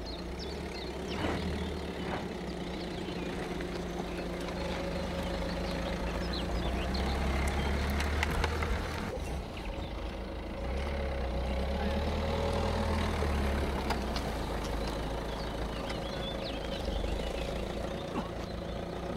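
Peugeot 2008's engine running at low revs as the car crawls slowly over a dirt off-road course: a steady low hum, swelling a little at times, with scattered small clicks.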